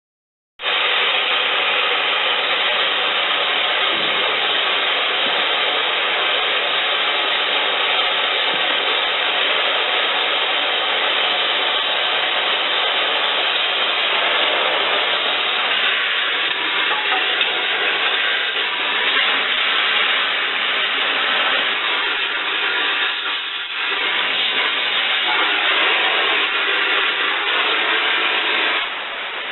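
Gas torch flame hissing steadily while heating a seized part on a tractor to free it. The hiss starts half a second in and drops away near the end.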